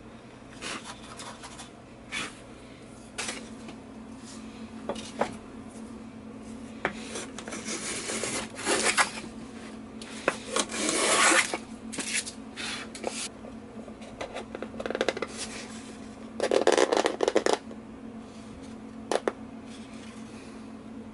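Hand tools working cedar: short, scattered chisel cuts and scrapes, then several longer rubbing strokes of a tool over the wood, the loudest around the middle and again about three quarters of the way through.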